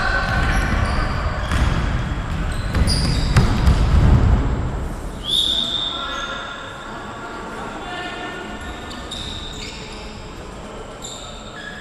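Indoor football game in a large hall: sneakers squeak on the court floor and the ball thuds, with players' voices in the background. There is heavy low rumble for the first few seconds and one louder sharp squeak about five seconds in.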